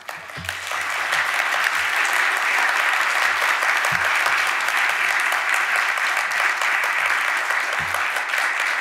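Audience applauding. The clapping swells over the first second, then holds steady.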